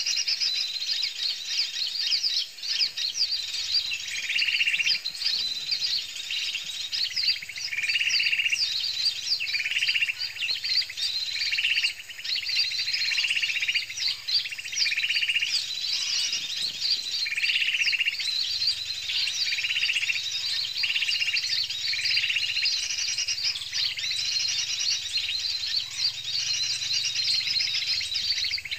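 Small songbirds chirping and twittering continuously, many short high notes overlapping, with a lower, longer note repeated about every second and a half.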